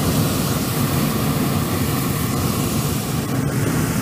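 Hot air balloon's propane burner firing: a loud, steady roar.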